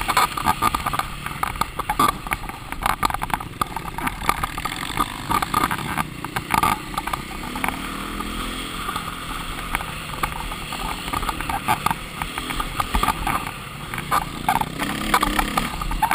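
KTM enduro dirt bike ridden over a rough trail, heard from its onboard camera: the engine running under throttle beneath constant clatter and knocks from the bike bouncing over the ground, with wind buffeting the microphone.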